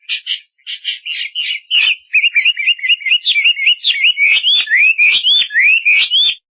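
An animal's calls: a burst of quick chattering notes, then from about two seconds in a fast run of short whistled notes that glide up and down, roughly three a second.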